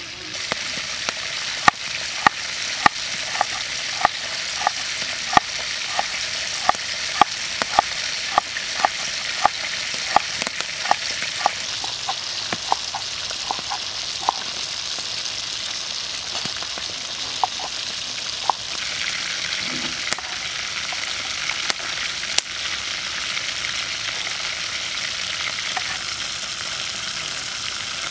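Chicken pieces deep-frying in a wok of hot oil, a steady sizzle. Over it, a knife chops on a wooden cutting board at about two strokes a second, thinning out after about twelve seconds and stopping by about eighteen.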